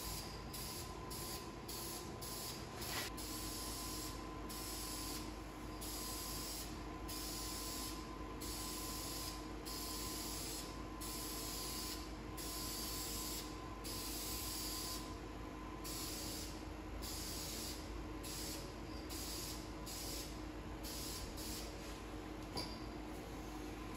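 Aerosol spray-paint can spraying in many short bursts of hiss, with brief pauses between passes, over a steady hum.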